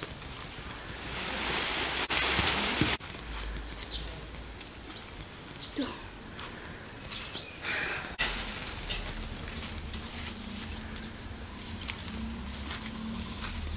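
Outdoor garden ambience: a steady high insect drone, with rustling and light footsteps on grass. There is a louder rustle about two seconds in and a few short clicks after it.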